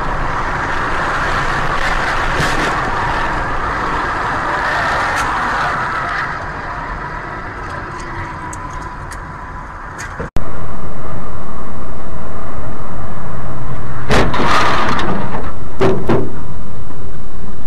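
Noise of a car driving on a highway, heard from inside the car: a steady rush of road and wind noise that fades somewhat. After a sudden cut about ten seconds in, a much louder, distorted rush of noise, with two crashing impacts near the end.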